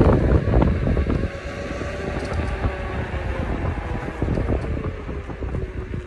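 Wind buffeting the microphone while riding a KingSong S22 electric unicycle, strongest in the first second and then easing. Under it is a faint whine from the wheel's hub motor that slowly drops in pitch.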